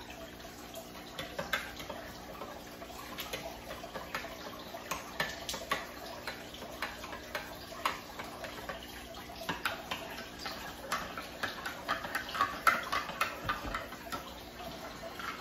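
A metal spoon tapping and scraping in a plastic container of sugar and clinking against a ceramic coffee mug as sugar is spooned in, in quick irregular clicks that grow busier near the end, over a steady low hum.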